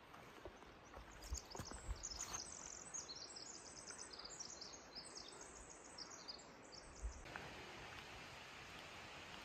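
A small songbird singing a long, rapid, high-pitched song of many quick notes, faint. A few soft footfalls thud along with it, and about seven seconds in the song gives way to a steady hiss.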